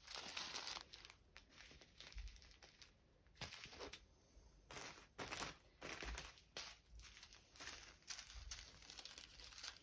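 Small plastic zip-lock bags of resin diamond painting drills crinkling as they are handled and set down, in a string of quiet short rustles.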